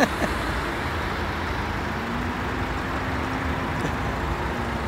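Steady rumbling background noise, with a faint steady hum through the middle couple of seconds.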